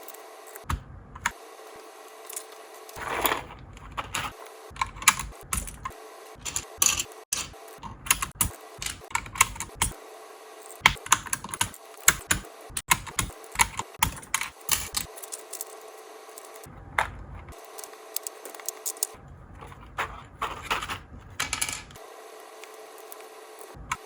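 Keys clacking on a mechanical keyboard fitted with Mario keycaps, typed in irregular runs with short pauses of a second or two in the second half.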